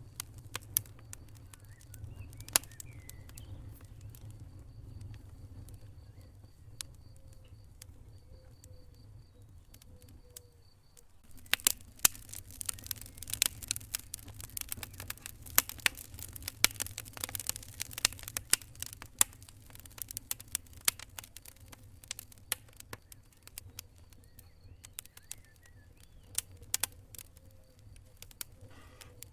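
Wood fire crackling and popping in a fireplace over a low steady rumble. The pops are sparse at first; about eleven seconds in, a dense run of crackling lasts around ten seconds, then it thins out again.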